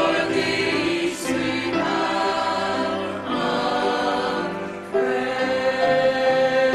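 Church choir singing a hymn in several parts, holding long notes; one phrase ends just before five seconds in and the next begins.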